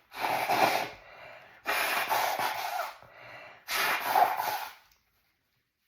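A woman blowing her nose three times, each blow about a second long, with quieter breaths between.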